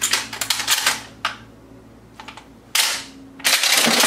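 Dummy shotgun shells being pushed one after another into a shotgun's magazine tube through the loading port: a quick run of sharp plastic-and-metal clicks, then a louder single clack about three seconds in. From about three and a half seconds, a continuous rattling clatter of handling begins.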